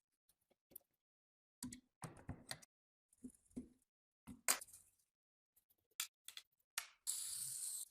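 Sewing machine parts being handled during restoration: a series of separate knocks and clicks, then a steady hiss near the end.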